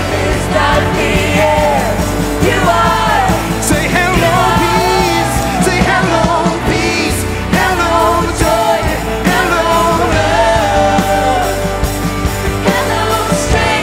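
Live worship band playing a song with full band backing: lead singing with electric guitar, bass and drums under a steady beat.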